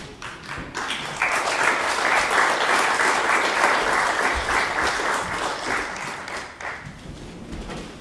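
Theatre audience applauding. The clapping swells in about a second in, holds, then dies away near the end.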